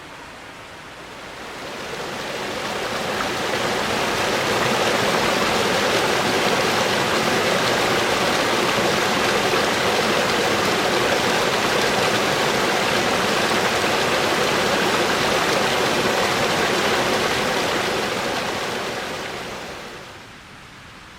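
Rushing water of a mountain stream, a steady even rush that swells in over the first few seconds and fades away near the end.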